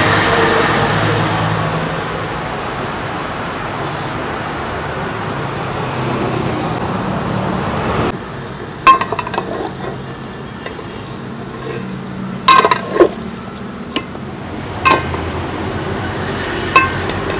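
A steady hiss as hot melted ghee is poured over mutton pieces in a large steel pot. From about eight seconds in, a steel ladle stirs the pot and clinks sharply against its side several times.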